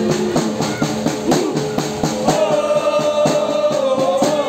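Football supporters chanting in unison while marching, over a steady drum beat of about four hits a second; the voices hold one long note through the second half.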